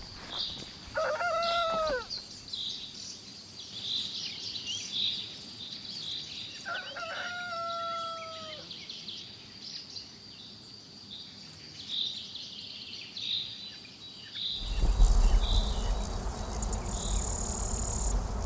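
Rooster crowing twice, the second crow held longer, with small birds chirping and a steady high insect-like tone behind. About 15 seconds in, this gives way to a louder steady rushing noise with a brief high buzz near the end.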